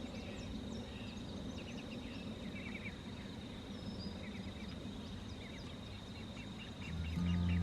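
Small birds chirping in short, quick series of notes over a low outdoor rumble, with a steady high thin tone running behind them. Acoustic guitar music comes in near the end.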